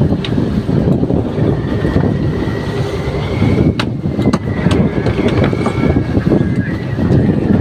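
Fishing boat's engine running loudly, with a steady high whine that wavers slightly in pitch above it. A few sharp clicks cut through, the sharpest about four seconds in.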